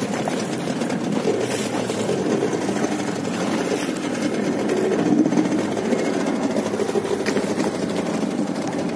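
Boat engine running steadily close by, an even, fast-knocking chug.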